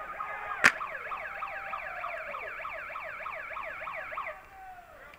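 A siren-like electronic yelp, its pitch sweeping quickly up and down several times a second for about three and a half seconds, then cutting off. A single sharp crack, the loudest sound, comes just before it starts.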